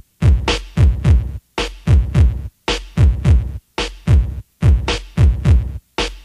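Electronic background music with a heavy drum-machine beat: deep kick drums dropping in pitch and sharp high percussion hits, cut into short phrases by brief silent gaps about once a second.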